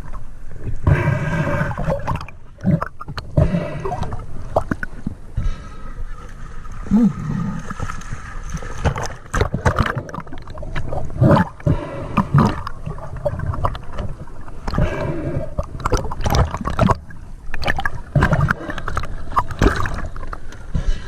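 Water gurgling and sloshing with many scattered knocks and clicks.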